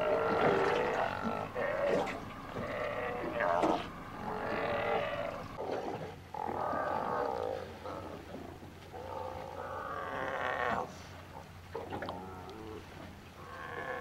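A crowd of Steller sea lions calling from their haul-out: many deep, overlapping calls of about a second each, loudest in the first few seconds, over a faint steady low hum.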